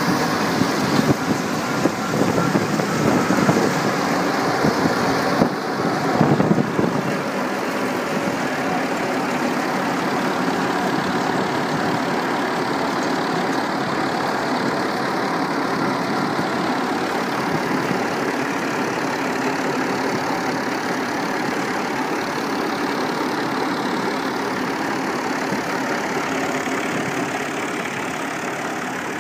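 Belt-driven wheat thresher running steadily together with the Al-Ghazi tractor's diesel engine that powers it. For the first seven seconds or so the sound is louder and uneven as wheat is fed in, then it settles into an even running sound.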